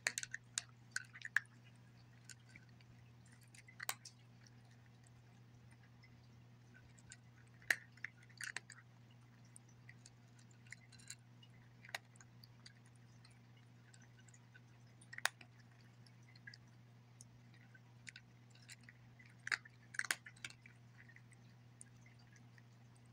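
Domestic cat crunching dry kibble from a bowl: sharp, irregular crunches, often in short clusters a few seconds apart. A faint steady low hum underneath.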